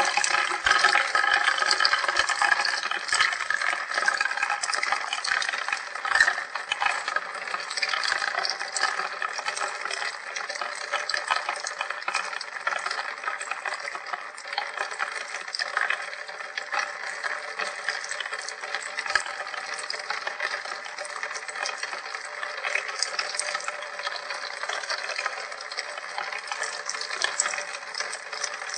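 Rain falling and dripping: a steady rush of water with scattered drops, a little louder in the first few seconds.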